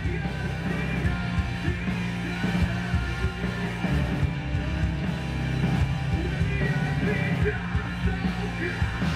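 Rock music.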